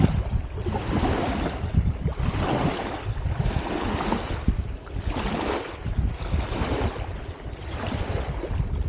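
Small lake waves lapping and washing up onto a muddy shore, surging about once a second, with wind rumbling on the microphone.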